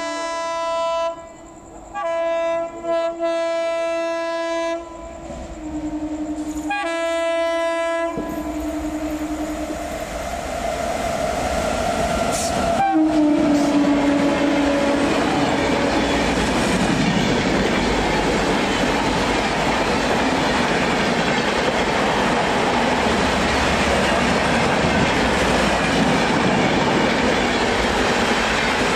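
Express train sounding its horn in several long blasts with short gaps as it approaches, then one last horn note that drops in pitch as it draws level about thirteen seconds in. The train then runs past at speed, its wheels and coaches clattering steadily over the track.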